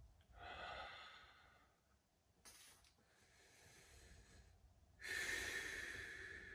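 A man breathing slowly and deeply while sitting in an ice bath: three long breaths, the last one the loudest.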